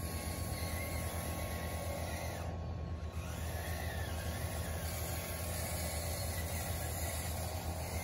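Radio-controlled model truck running: a steady motor hum with a whine that rises and falls twice as it speeds up and slows.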